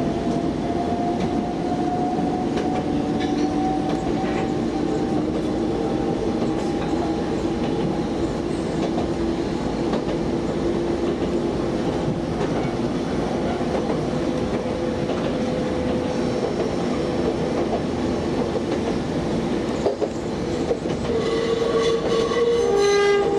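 Enoshima Electric Railway train heard from inside the cab, running on the track. Its electric traction motors whine, rising slowly in pitch over the first several seconds as it gathers speed, and the wheels click over the rail joints. Near the end, a loud, high tone with several overtones sounds for about two seconds and then falls away in pitch.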